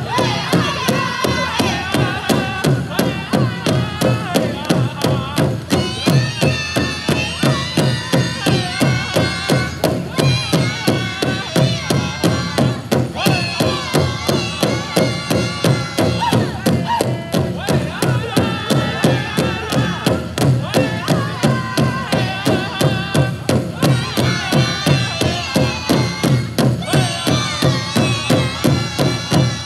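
Powwow drum group singing a contest song over a big drum struck in a steady, even beat.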